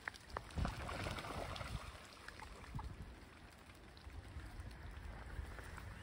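Faint outdoor water-and-wind ambience: a low wind rumble on the microphone under a soft hiss of water, with a few soft knocks in the first second.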